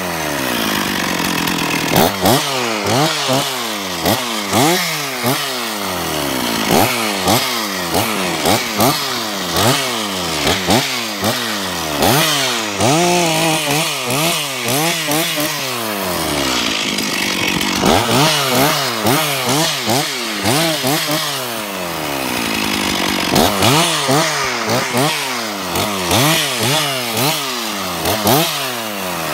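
Stihl 046 two-stroke chainsaw revved in short bursts over and over, its pitch shooting up and falling away about once a second, with a few brief steadier stretches: quick cuts through small pine stems while thinning.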